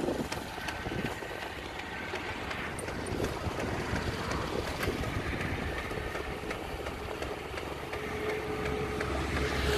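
Kubota SPW-48C walk-behind rice transplanter's small engine running steadily as the machine works through a flooded paddy, with a faint steady hum coming in about six seconds in.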